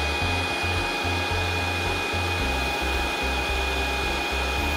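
Vacuum pump of a CNC router's vacuum hold-down table running steadily: a constant rushing noise with a steady high whine, the vacuum on and ready to hold the panel down on the cups.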